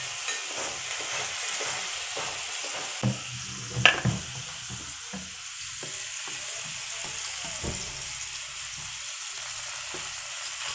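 Boiled, mashed pumpkin sizzling in hot oil with fried garlic in a frying pan, with light scattered knocks as it is worked in the pan. One sharp knock about four seconds in is the loudest sound.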